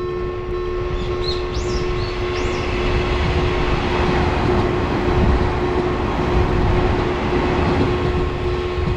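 Train running past with a heavy rumble that swells toward the middle, over a steady low two-note tone.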